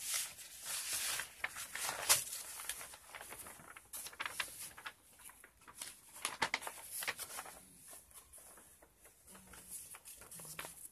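Paper being handled: sheets rustling and crinkling as a page is moved and turned, with scattered light taps and scrapes, busiest in the first couple of seconds.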